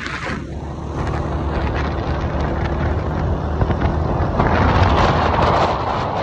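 Motorcycle engine running at cruising speed, with wind rushing over the microphone that grows louder about four and a half seconds in.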